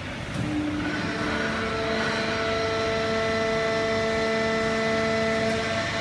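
Fully automatic horizontal hydraulic baler running: a steady mechanical hum from its motor and hydraulic pump, with a whine of several steady tones that settles in about a second in and holds.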